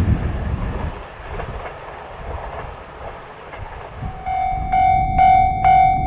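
Train running past on the Hokuriku Main Line, a low rumble that dies down; about four seconds in, a Japanese level-crossing warning bell starts ringing, a steady electronic clang about twice a second that warns of an approaching train.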